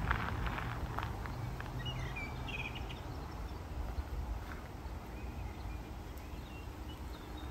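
Outdoor garden ambience: small birds chirping a few times over a steady low rumble, with a few light clicks near the start.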